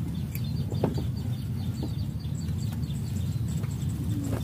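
Faint bird chirps over a steady low hum, with a few light knocks from handling, the sharpest about a second in.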